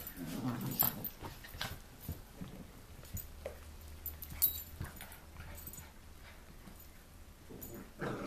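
Rat terriers play-fighting: short dog vocal sounds in the first second, then scattered light knocks and scuffles as they chase and jump on the furniture.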